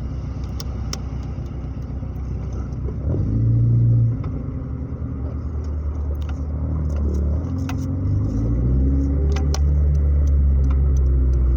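Chevrolet Chevy's engine heard through an exhaust with a catalytic converter and a bullet muffler, pulling away under throttle: it swells about three seconds in, drops off suddenly a second later, then climbs again and stays loud near the end.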